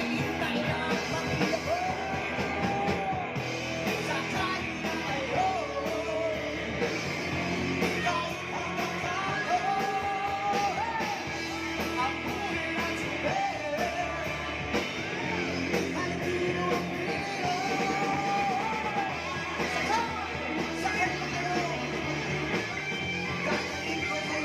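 A band playing a rock song with a lead singer and guitar, amplified through a sound system.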